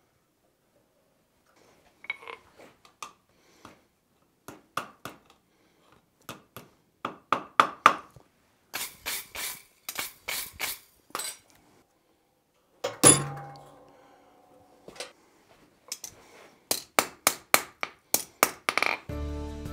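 Blacksmith's hammer striking a steel bar on the anvil, first in scattered blows, then in quick runs. Around ten seconds in, several scratchy strokes of a wire brush scrub scale off the hot bar. About thirteen seconds in comes one loud clang that rings on for a second or two.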